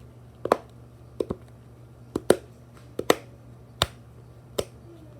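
Dimple fidget toy's bubbles being pressed one after another, each giving a sharp pop-click: about nine pops, some in quick pairs.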